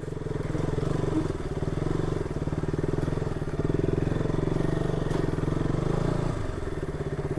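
Single-cylinder motorcycle engine running steadily at low revs, easing off slightly about six seconds in.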